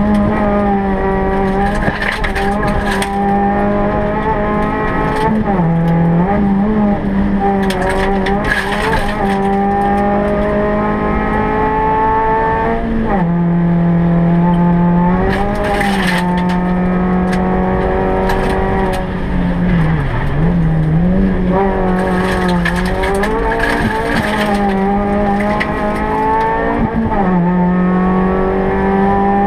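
Suzuki Swift Sport rally car's 1.6-litre four-cylinder engine heard from inside the cabin, held high in the revs at full attack. Its pitch drops briefly about five times and climbs straight back, with short bursts of tyre and road noise in between.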